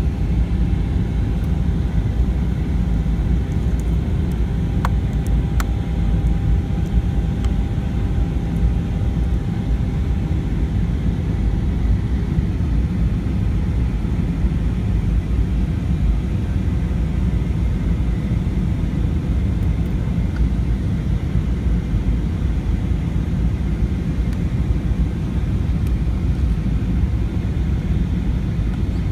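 Airbus A320 cabin noise on descent: the steady rumble of the engines and rushing airflow heard from inside the passenger cabin, with a faint steady whine.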